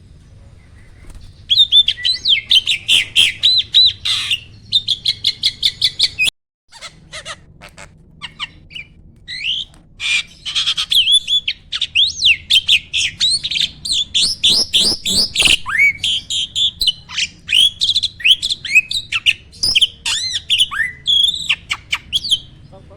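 A starling (jalak) singing a long, rapid chattering song of quick whistled notes mixed with harsher calls, broken by short pauses and a brief cutout about six seconds in.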